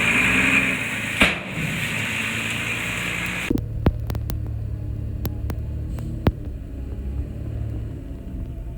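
Heavy construction machine diesel engine running with a steady low rumble. For the first three and a half seconds it comes with a loud hiss of machine noise and a sharp click. The hiss cuts off suddenly, leaving the low engine rumble with a few scattered clicks.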